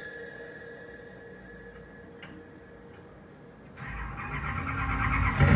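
Oneal OPB-5060X powered loudspeaker starting playback: a couple of faint clicks, then from about four seconds in a loud rising engine-like rumble that builds and cuts off sharply, the opening of a track.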